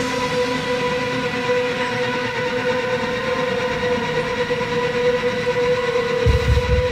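Live band music: a sustained synthesizer chord held steady, with low drum hits starting near the end.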